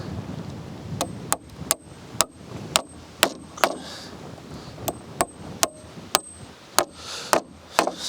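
Repeated hammering on the roof: about fourteen sharp strikes at roughly two a second, with a short pause partway through. Many strikes are followed by a brief high metallic ring.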